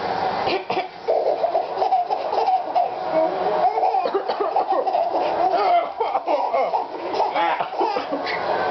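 A baby laughing almost without pause.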